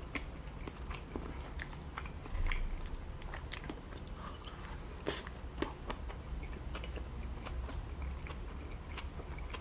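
A person chewing a mouthful of sushi close to the microphone: many small mouth clicks and smacks, a little louder about two and a half and five seconds in, over a low steady hum.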